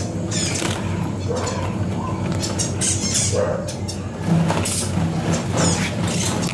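A colony of caged budgerigars and finches chirping and chattering, with a steady low hum underneath.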